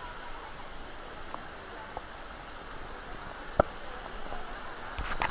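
Steady rushing of a waterfall pouring into a pool, with faint voices of people in the background. A single sharp click about three and a half seconds in, and a few more knocks near the end.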